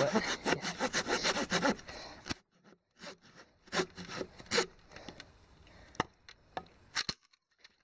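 Hand saw cutting through a piece of wood in quick back-and-forth strokes, stopping about two and a half seconds in, followed by a few scattered knocks and clicks.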